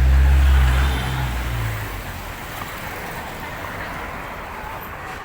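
A motor vehicle's engine passing close by: a low rumble, loudest in the first second, that fades away by about two seconds and leaves steady road-traffic noise.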